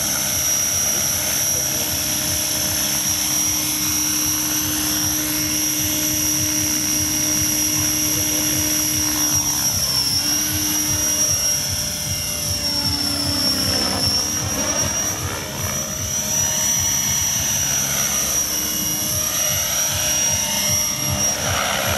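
Radio-controlled model helicopter flying: a steady high-pitched whine over a fast rotor chop. From about ten seconds in, the tone sweeps up and down as the helicopter moves about low over the grass.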